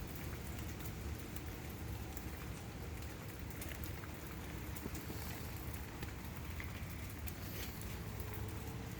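Heavy thunderstorm rain falling steadily, with many scattered drops clicking on nearby surfaces.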